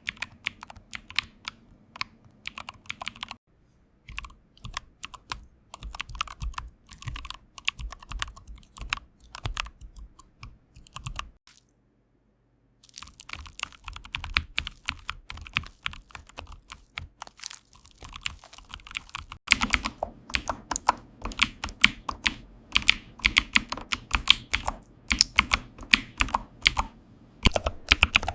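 Rapid typing on a computer keyboard, a quick run of crisp keystroke clicks. The typing breaks off briefly twice, and about two-thirds of the way through the keystrokes turn louder and fuller.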